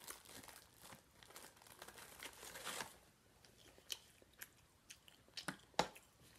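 Faint crackling crunches of crisp hard corn taco shells for about three seconds, then a few separate light clicks and taps, the sharpest one near the end.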